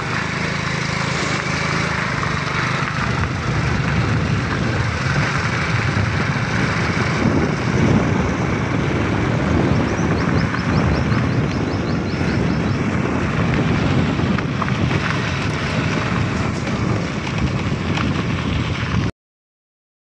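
Wind buffeting the microphone over the running engine of a moving motorcycle, steady throughout, then cutting off suddenly near the end.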